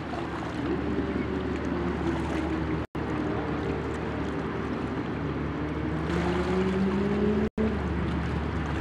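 Steady engine drone of boats on the river: a low rumble with humming tones, one of which rises slowly in pitch toward the end. The sound cuts out for an instant twice.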